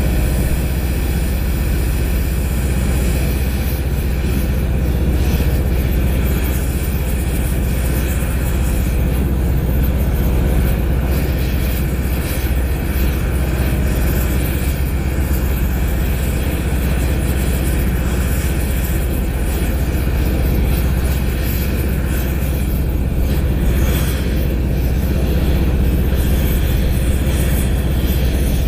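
Oxy-fuel torch flame burning steadily against a hydraulic cylinder part, heating it, over a steady low engine rumble.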